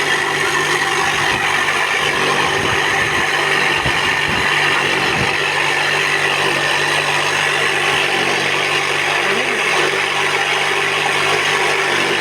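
An engine running steadily with an even, unchanging hum.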